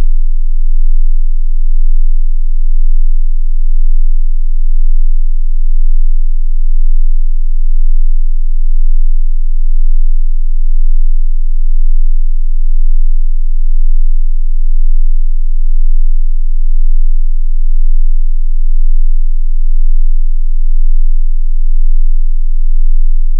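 A very low, steady sine-wave hearing-test tone, played loud, with a gentle regular pulsing in its loudness about once a second.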